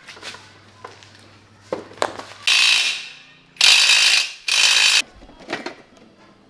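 Pneumatic impact wrench rattling in three short bursts, each about half a second, as the axle nut of a scooter's rear wheel is loosened for a puncture repair, with a few light tool clicks before.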